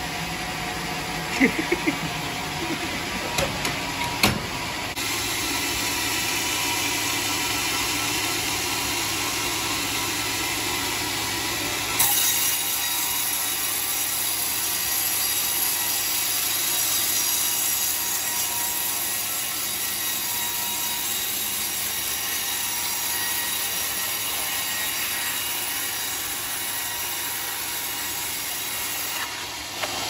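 Homemade band sawmill cutting a teak log: a steady noise of the blade running through the wood. There are a few knocks in the first few seconds, and the cutting noise steps up and grows brighter about twelve seconds in.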